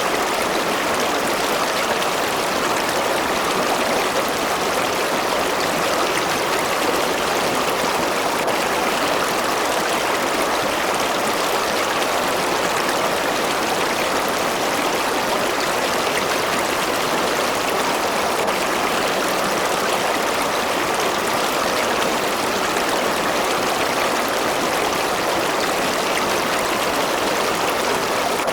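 A river or stream flowing steadily over rocks, an even rushing and babbling of water without pause or change.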